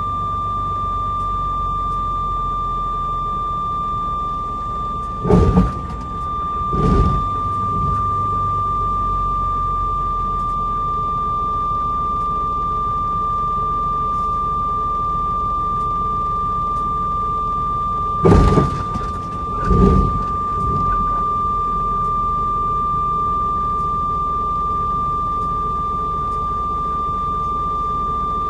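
A steady high-pitched tone over a low rumble heard inside a vehicle cab. Two pairs of short thuds break through, about five seconds in and again about eighteen seconds in.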